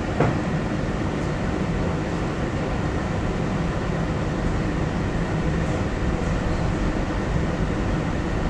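Steady machinery rumble on board a ship whose main engine is running at half ahead, about 53 RPM, with one sharp click just after the start.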